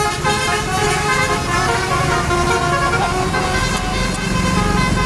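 Multi-tone 'telolet' bus horn playing a tune of quickly changing notes, over the low rumble of a bus engine running.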